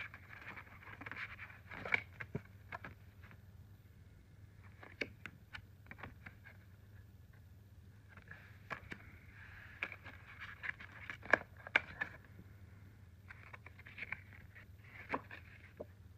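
Stiff paper art cards handled over an open plastic Blu-ray case: intermittent rustling and scraping of card stock, with scattered light clicks and taps, a few sharper ones about two seconds in and near eleven to twelve seconds in.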